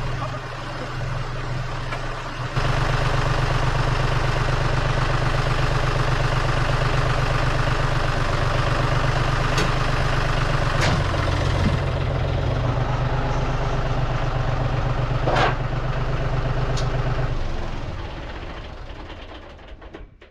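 An engine running steadily. It steps up louder a couple of seconds in, with a few sharp metallic clanks along the way, then winds down and stops near the end.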